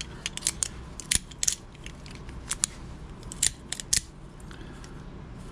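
An OTF automatic knife's blade snapping out and back in, a series of sharp metallic clicks, some in quick pairs. The action is still a little slow after its repair and needs to wear in.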